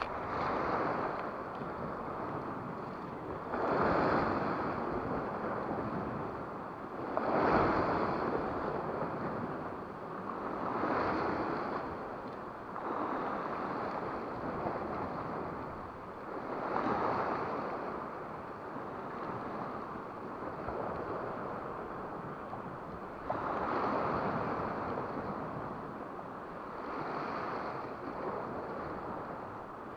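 Sea waves washing against a rocky shore, surging and falling back every few seconds.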